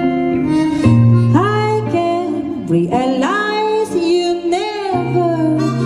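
Female jazz vocalist singing a slow ballad, sliding up into long held notes with vibrato, over guitar chords.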